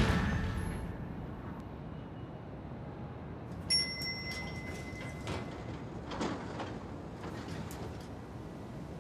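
The tail of a crash dying away into a low, steady background hush, with a few faint clicks and a brief high whistle-like tone about four seconds in.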